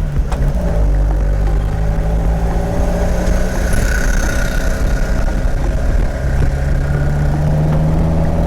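Ginetta sports car engine running at a steady note while driving, with a faint high whine in the middle stretch.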